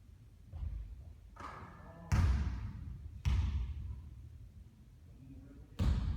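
A basketball bouncing on a court, with three loud thuds about two, three and six seconds in and softer knocks before them.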